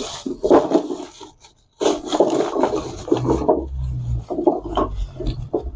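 Lumps of charcoal tumbling out of a plastic bag onto bricks in a brazier, knocking and clattering against each other while the bag crinkles. A first rush of pouring, a brief pause about a second and a half in, then continuous rustling and clatter as the rest of the bag is shaken out.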